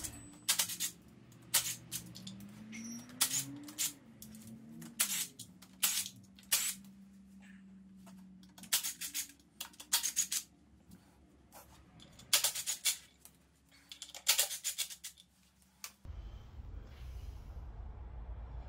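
Socket ratchet clicking in short bursts, with clinks of metal tools, as bolts are undone on the timing end of a VW 2.0 TDI diesel engine.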